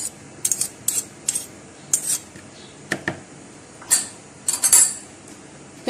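Metal spoon clicking and scraping against a plastic mixing bowl in about eight short, irregular strokes as a spoonful of butter is knocked off into the flour.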